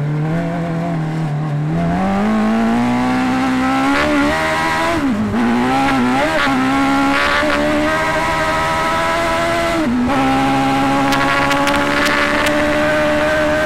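Suzuki Hayabusa motorcycle engine of an off-road buggy accelerating on a speed run, its pitch climbing through the gears. Two upshifts, about 5 and 10 seconds in, each show as a brief drop in pitch before it climbs again.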